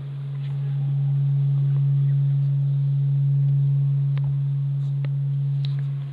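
Large bell humming after being struck with a hammer: one steady low tone that swells over the first second or so and then holds.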